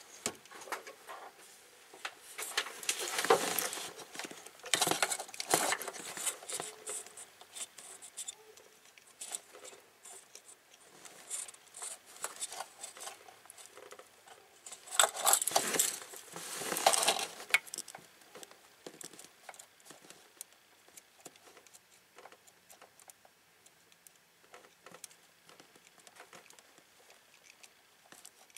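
Electrical tape being pulled off the roll and wrapped around a freshly soldered alternator wire, in a few short noisy pulls a few seconds in and again around the middle, with small clicks and rustles of hands working among the wires in between.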